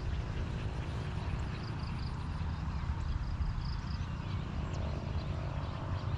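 Outdoor background: a steady low rumble with short runs of high, quickly repeated chirps from birds or insects.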